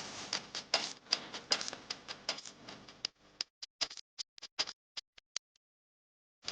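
Hot oil crackling and spluttering in a pan: a dense run of pops for about three seconds, thinning to scattered single pops.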